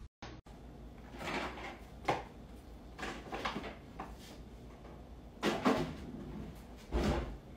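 Knocks and rattles from a kitchen wall cupboard and its contents as a cat rummages inside it, head and paws in the shelf. About six separate bumps, the loudest two-thirds of the way in and near the end.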